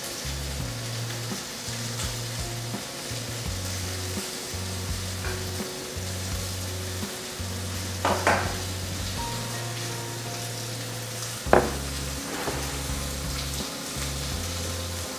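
Ribeye steak sizzling as it fries in a pan, a steady hiss. Two sharp knocks on the pan, about eight seconds in and again about three-quarters of the way through, the second the loudest.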